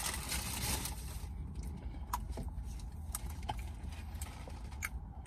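Take-out food packaging rustling for about a second, then a few light clicks and taps, over the low steady hum inside a car.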